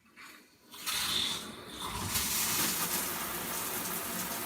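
Shower turned on: water spraying from a newly fitted shower head, a steady hiss that starts about a second in.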